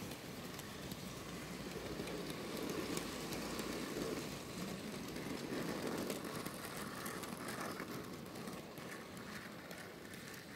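OO-gauge model freight wagons rolling along model railway track: a steady rumble of small wheels with light clicking, easing off near the end as the last wagon passes.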